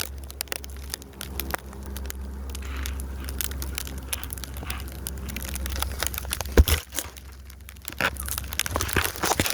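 Snow crunching and crackling in many short, irregular crunches, over a steady low rumble, with one sharp thump about six and a half seconds in.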